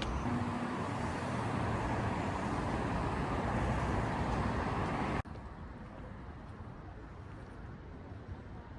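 Steady road-traffic noise. About five seconds in it cuts off abruptly to a quieter, steady background hum.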